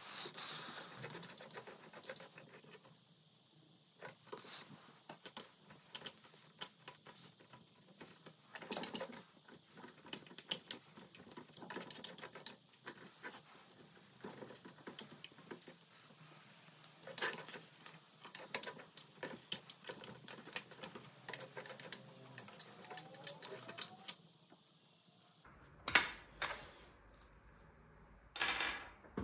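Irregular small clicks, taps and scrapes of a screwdriver, a pick and fingers handling the metal and plastic parts of an opened Pfaff hobby 4260 sewing machine, with two louder knocks near the end.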